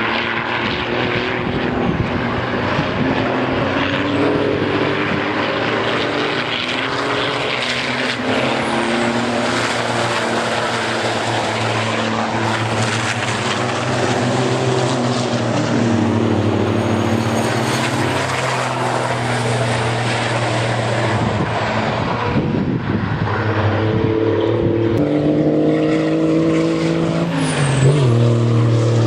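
Racing trucks' diesel engines running hard at speed around the circuit, a continuous loud drone whose pitch shifts several times as they accelerate and change gear, with a clear drop in pitch near the end.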